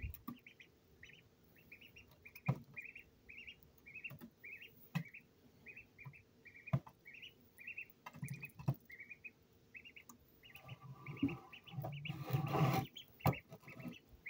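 Duckling peeping steadily, about two short high peeps a second, while it pecks food from a plastic plate, with a few sharp taps of its bill on the plastic. About twelve seconds in there is a longer, louder rustling, scraping noise.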